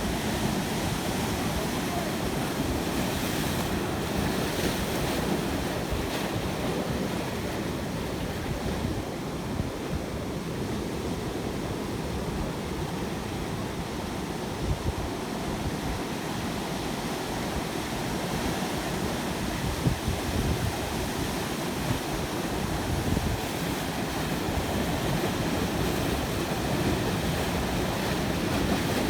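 Sea surf: waves breaking and washing in a continuous rush that slowly swells and eases, with a heavy low rumble.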